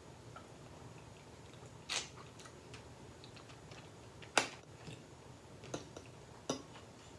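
Close-miked chewing of fresh fruit, with a few sharp wet mouth clicks and smacks; the loudest comes about halfway through.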